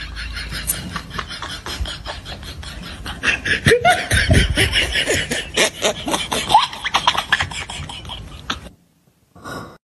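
Human laughter in short, chopped bursts, loudest in the middle, over a rapid clicking; it cuts off shortly before the end.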